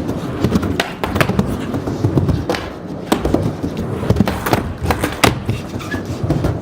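Skateboard rolling with a steady low wheel rumble, broken by a string of sharp clacks and knocks as the board is popped and lands repeatedly during a run of trick attempts.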